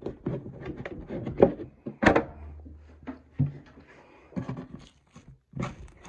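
Hands pressing and squeezing a beaded homemade slime, a sticky slime mixed with snow slime, giving a run of small sticky pops and crackles. Two louder thunks come about one and a half and two seconds in.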